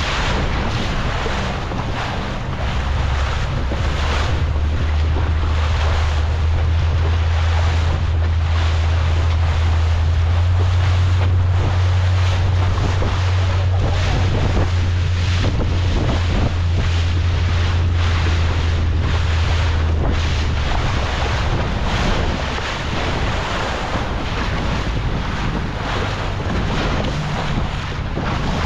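Wind buffeting the microphone over the rush of water aboard a small fishing boat at sea. A boat engine runs underneath as a steady low hum that steps slightly up in pitch about halfway through and fades out about two-thirds of the way in.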